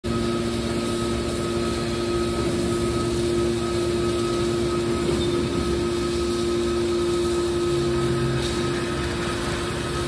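Hydraulic scrap-metal baler running, its hydraulic power pack giving a steady hum and pump whine while the cylinders lower the compression lid. The pitch shifts slightly about halfway through.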